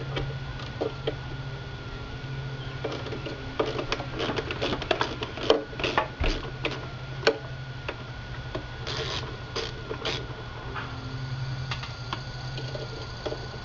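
Irregular plastic clicks, taps and scrapes of a screwdriver and pliers working inside the opened plastic housing of a power-extending towing mirror, thickest in the middle of the stretch and again a little later, over a steady low hum.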